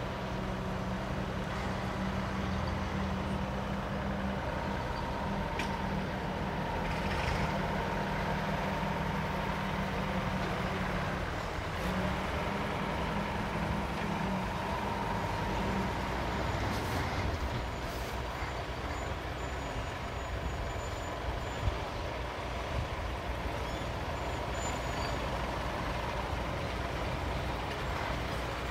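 IFA W50LA truck's straight-six diesel engine running at low speed as the heavy dump truck crawls along a rough dirt track, a steady low drone that eases off after about sixteen seconds.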